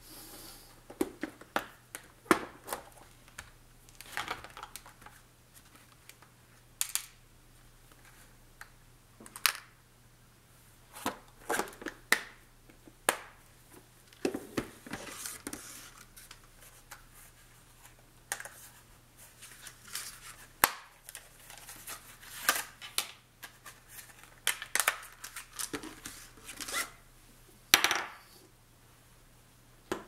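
Hands handling wax-seal crafting tools and supplies: scattered clicks, taps and short rustles of metal, plastic and paper or ribbon, some sharp, at irregular intervals. A faint steady low hum runs underneath.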